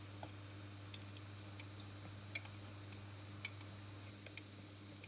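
Faint, scattered clicks of a small component's metal pins being pressed against the holes of a circuit board, the pins refusing to go in, over a steady low electrical hum.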